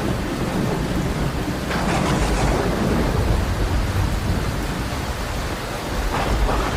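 Loud, steady rushing of water in a flood, with a heavy low rumble. The noise brightens briefly about two seconds in and again near the end.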